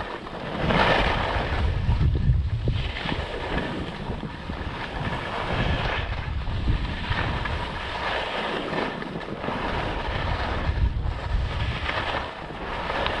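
Wind buffeting the microphone during a ski run, with skis scraping and hissing on snow in swishes that recur every second or two, one per turn.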